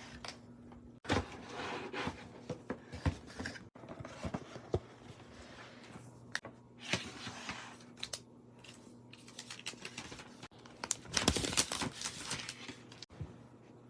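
Packaging of an iPad Pro being opened by hand: irregular rustling, crinkling and tearing with scattered sharp clicks, busiest about eleven seconds in. A faint steady hum lies underneath.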